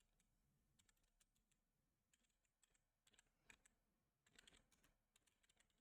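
Very faint, irregular keystrokes on a computer keyboard, scattered taps with near silence between them.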